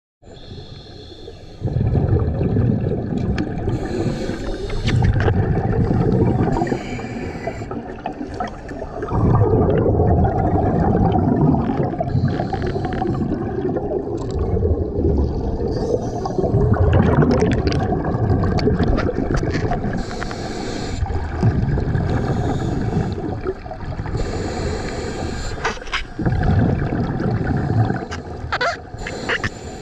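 Scuba diver breathing through a regulator underwater, heard through a GoPro's waterproof housing: a low bubbling rumble of exhaled air every few seconds, with a hiss between exhales.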